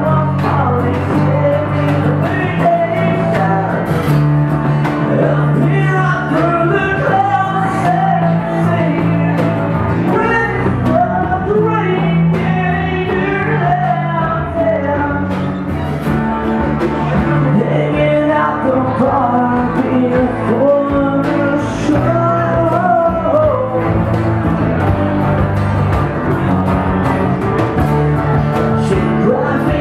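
A band playing live: strummed acoustic guitars and drums under a lead vocal, a pop-punk song in an acoustic arrangement.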